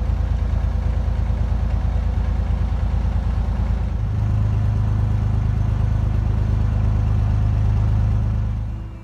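An engine running steadily with a low, throbbing drone. About four seconds in its note changes to a smoother, slightly louder hum, and it fades away just before the end.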